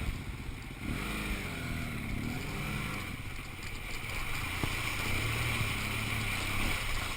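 Motorcycle engine revving, its pitch rising and falling several times, then running more steadily.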